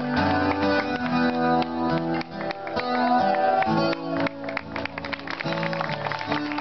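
Background music led by a strummed acoustic guitar, with held chords underneath.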